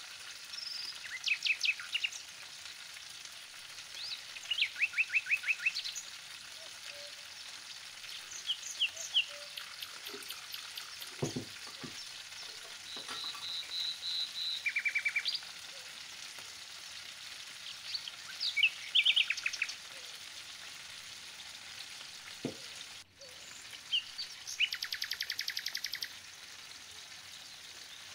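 Lamb pieces and crinkle-cut potatoes frying in a pan, a steady sizzle. Over it, a bird sings short bursts of rapid high chirps and trills every few seconds, louder than the frying.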